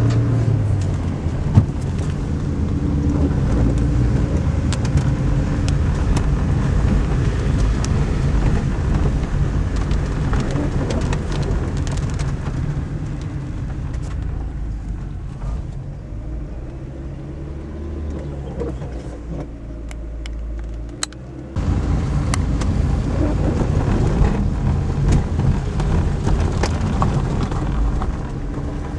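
A car driving slowly over a road awash with storm runoff, heard from inside the car: a steady low engine and road rumble with the hiss and scattered ticks of the tyres going through water and grit. The hiss thins out for several seconds past the middle, then comes back abruptly.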